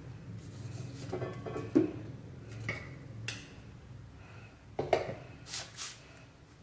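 Steel spoon spreading garlic mayonnaise over shawarma flatbread on butter paper: scattered soft scrapes and taps of the spoon, the sharpest about two seconds in, and a few brief swishes around five seconds in, over a faint steady low hum.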